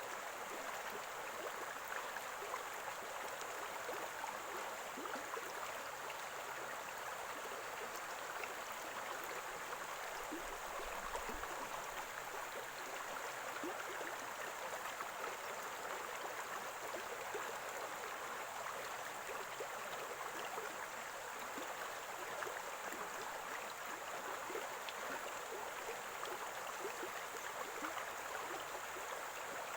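Running water of a small stream gurgling steadily.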